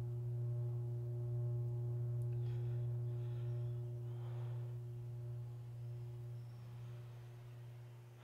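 Low, steady drone from a film score, a sustained tone with fainter higher overtones. It fades over the last few seconds and cuts off at the end.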